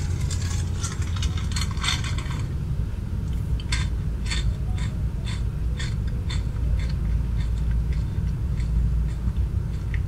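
Steady low rumble of a car idling, heard inside the cabin. Over it come a cluster of light clicks and scrapes in the first couple of seconds, then short sharp ticks about twice a second.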